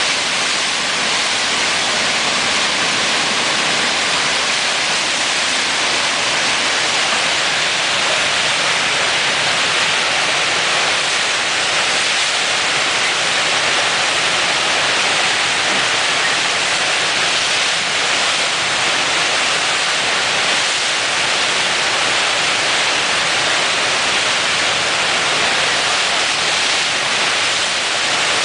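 Whitewater of the Eisbach river's standing surf wave rushing loudly and steadily, with no breaks.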